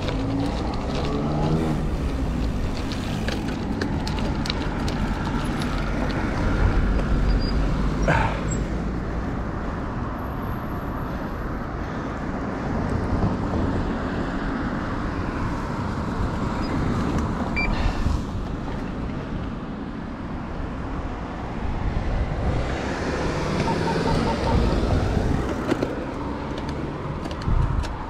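Road traffic heard from a moving bicycle: a steady rumble of tyre and road noise, with motor vehicles passing near the start and again about 23 seconds in, and a couple of sharp clicks.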